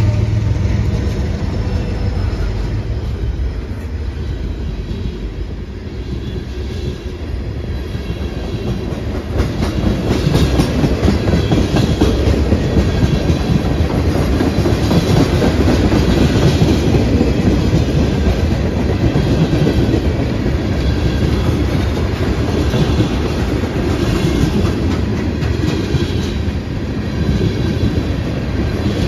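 Freight train tank cars rolling past, with a steady rumble and steel wheels clicking repeatedly over the rail. The diesel locomotives' engine hum fades out in the first second.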